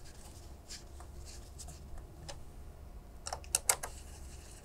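Hand screwdriver driving a screw into the metal RAID controller housing of a rack server: faint scraping and ticks, with a quick run of sharp clicks about three and a half seconds in.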